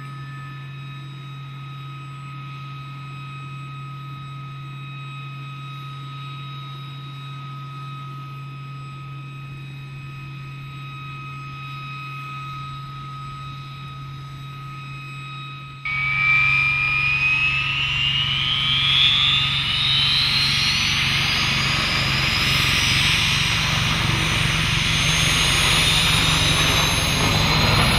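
A parked Chinook helicopter, rotors still, gives a steady turbine whine over a low hum. About sixteen seconds in this gives way abruptly to a much louder helicopter turbine sound, its whine rising steadily in pitch as it spools up.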